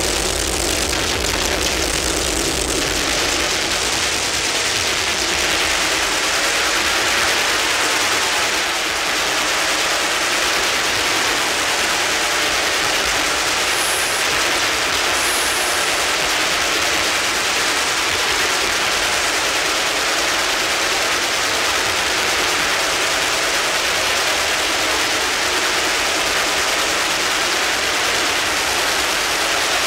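Steady, dense wall of electronic noise and feedback hiss, loud and unbroken, with little bass, a low rumble fading out in the first few seconds and faint high whistling tones coming in near the end.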